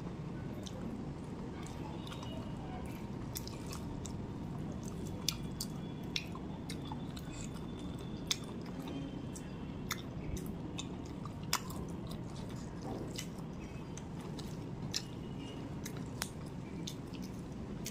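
Close-miked eating sounds of a person chewing a mouthful of rice and chicken curry eaten by hand, with wet mouth clicks several times over a steady low background.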